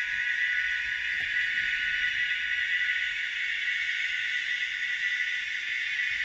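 N gauge Class 85 electric locomotive model running with DCC sound: an ESU V5 nano decoder playing a Class 85 sound file through a sugar cube speaker. It gives a steady, even hissing whirr with no change in pitch.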